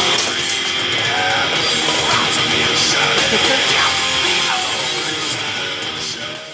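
Rock music with electric guitar, fading out near the end.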